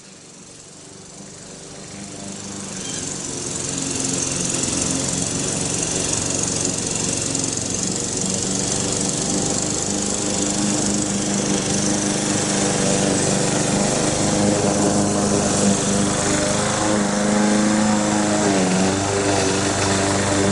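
A geothermal drilling rig's engine runs steadily, with a hiss on top. It swells up over the first few seconds, and its pitch dips briefly and recovers near the end.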